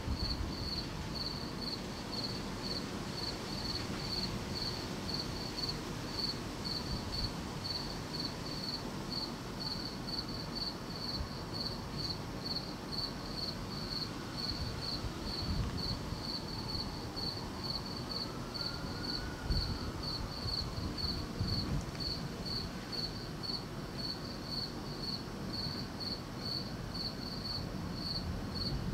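Crickets chirping steadily in a high, even rhythm of about two to three chirps a second, over a low, uneven background rumble.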